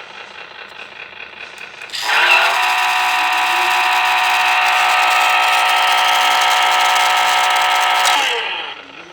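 Taiyo mini Suzuki remote-control toy car's electronic engine sound: a quiet idle that revs up about two seconds in, holds a loud steady rev for about six seconds, then winds back down to idle near the end.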